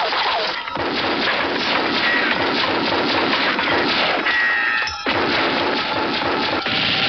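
Action film trailer soundtrack: music under a dense run of crashes and impacts, with a brief drop about five seconds in.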